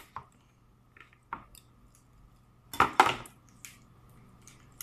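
Cooked blue crabs being cracked and picked apart by hand: a scatter of sharp shell clicks and snaps, the loudest a quick pair of cracks about three seconds in.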